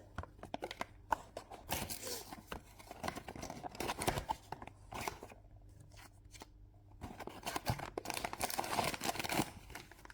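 A small cardboard blind box being opened by hand: scattered clicks, scrapes and tearing of the box's seal and flaps, with a quieter pause in the middle, then denser rustling.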